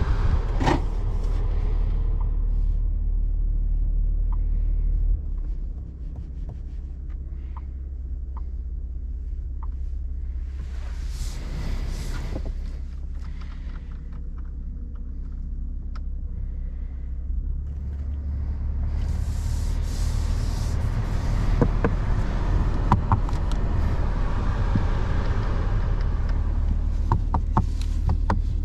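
Toyota GR Supra's 3.0-litre turbocharged straight-six running with a steady low rumble that drops in level about five seconds in. Brief rushes of noise twice, and scattered sharp clicks near the end.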